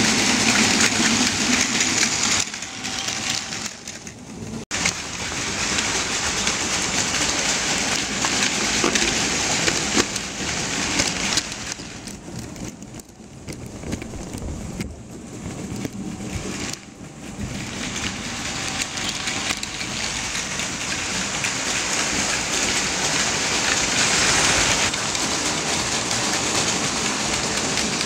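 Battery-powered Plarail Advance toy Shinkansen trains running on plastic track: a steady whirring rattle of their small motors and wheels. It drops away twice, for a couple of seconds about three seconds in and again around the middle, then builds back.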